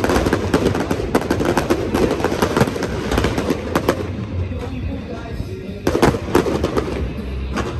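Aerial fireworks going off in rapid crackling volleys, thinning out after about four seconds, with a few louder bangs around six seconds in. Music plays underneath.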